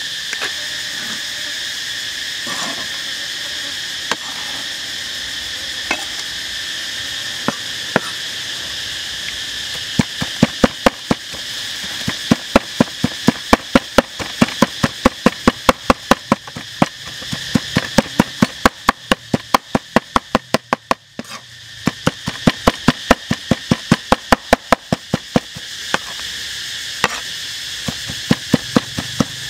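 Cleaver chopping raw pork on a wooden cutting board to mince it. A few scattered strokes come first, then fast, even chopping at about three strokes a second from about a third of the way in, with a brief pause about two-thirds through.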